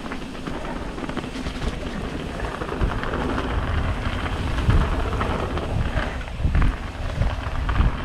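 Wind buffeting a GoPro on an Intense Recluse mountain bike riding fast down a gravel trail, with the tyres rolling over loose gravel and the bike rattling over bumps. The wind rumble gets louder from about three seconds in.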